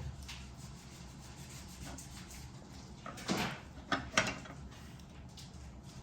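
Plastic toy pieces being handled, with a few short rubbing and scraping sounds about three and four seconds in.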